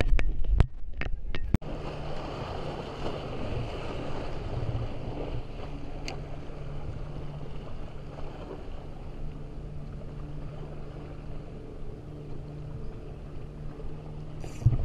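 A steady engine drone holding one low pitch, over wind and water noise. A few sharp knocks from handling sound in the first second or so.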